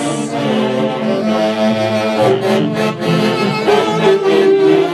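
Saxophone section of a huayno orchestra playing an instrumental interlude in harmony over a steady dance beat.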